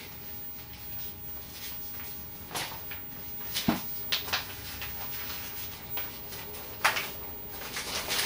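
Sheets of an old handwritten paper letter being handled: a few short rustles and clicks, about two and a half seconds in, a cluster a second later, and one more near the end.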